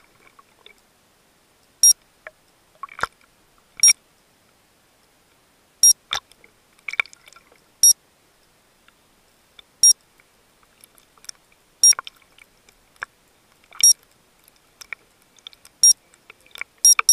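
Heard underwater: a short high electronic beep repeating about every two seconds, with scattered clicks and knocks between.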